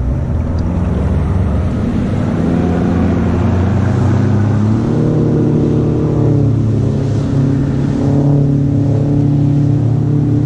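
Mercury 300XS V6 two-stroke outboard running at low speed, its revs stepping up about halfway through.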